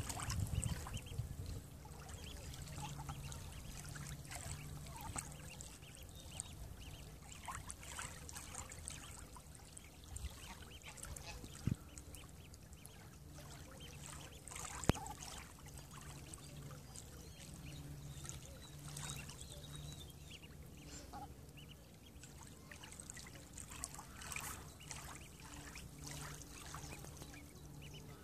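Mallard hen and duckling dabbling in shallow water: faint lapping and dabbling with scattered short duck calls. Two sharp clicks stand out near the middle.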